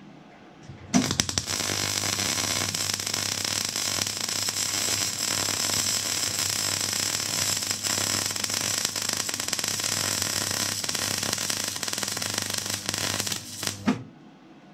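MIG welder's arc crackling steadily as a weld bead is run, starting about a second in and cutting off shortly before the end, with a low steady hum beneath it.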